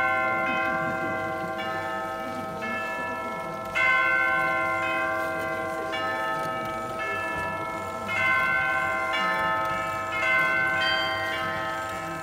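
Bells ringing a slow run of different notes, each strike ringing on and overlapping the next, with louder strikes about four and eight seconds in.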